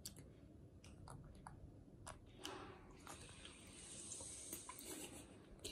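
Faint wet sucking and slurping of a baby macaque drawing thick walnut milk through a straw, with small lip-smacking clicks. The sucking noise grows from about halfway through.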